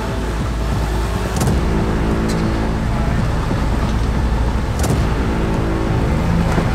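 Engine of an off-road 4x4 truck running steadily, with three sharp knocks.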